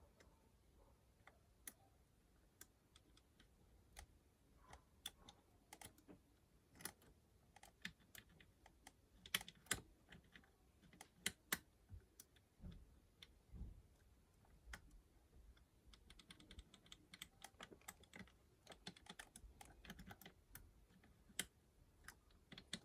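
Faint, irregular small metal clicks and taps of a lock pick working the levers inside a five-lever mortice lock, coming thicker in the second half.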